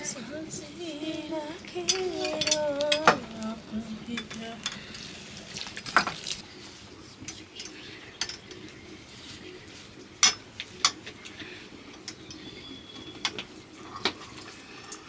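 Metal spoons and utensils clinking, knocking and scraping against metal plates and pots in scattered sharp strikes. A voice sounds briefly in the first few seconds.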